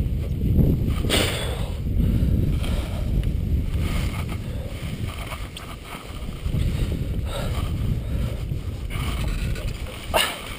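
Wind rumbling on an exposed microphone in uneven gusts, with a few brief scrapes or rustles.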